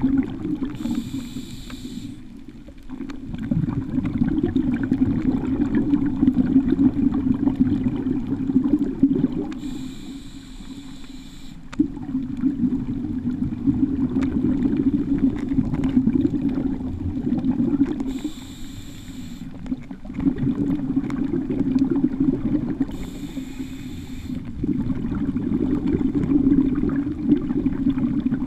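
Scuba diver breathing through a regulator underwater: four short hissing inhalations, each followed by several seconds of rumbling exhaled bubbles.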